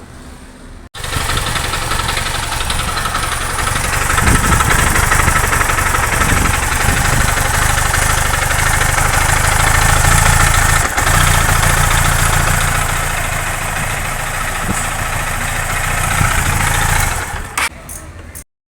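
Honda CG 160 Titan's single-cylinder four-stroke engine running steadily, with a lot of clattering mechanical noise above the low engine note: the engine noise that the mechanic goes on to trace to wear in the head and cylinder. It starts about a second in and cuts off abruptly near the end.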